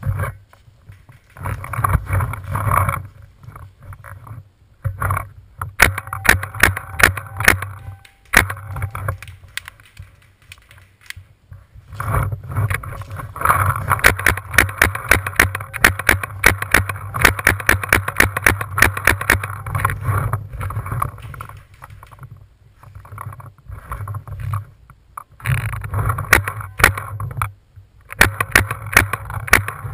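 Paintball marker firing in rapid bursts, many sharp pops a second, with short pauses between the bursts.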